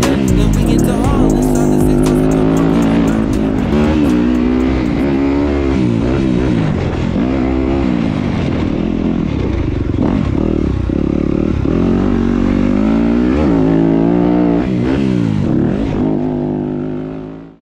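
Dirt bike engine revving up and down repeatedly as it shifts through the gears on a trail, with music underneath. The sound fades out near the end.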